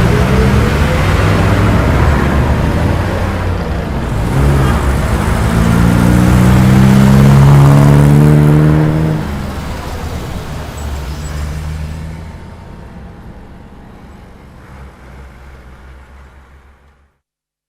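Bus pulling away: its engine note climbs in pitch as it accelerates, loudest about halfway through, then drops off and fades as the bus drives away, cutting off just before the end.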